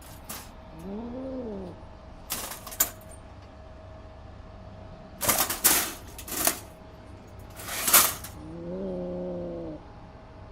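Angry cat giving two low drawn-out growling yowls, with sharp hisses between them; the loudest hisses come in the middle and just before the second yowl.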